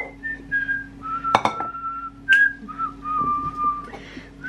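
A woman whistling a slow tune in long held notes over a steady low hum, with a sharp clink about a second and a half in and another a second later.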